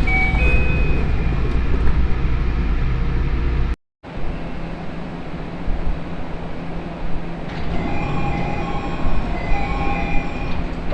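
A train running, in two separate recordings joined by a hard cut about four seconds in. Each has a steady low rumble, and short pitched tones sound near the start and again from about seven and a half seconds.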